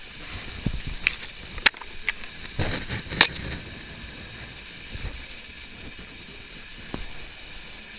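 Bedding rustling and handling noise close to the microphone as a kitten is stroked under a sheet: a few sharp clicks, then a louder brushing scrape about three seconds in, over a steady hiss.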